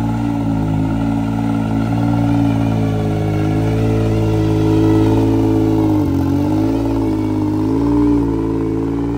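Can-Am Maverick X3's turbocharged three-cylinder engine running at low speed as the side-by-side backs out and pulls away, the engine pitch rising about four seconds in, then dipping and rising with light throttle.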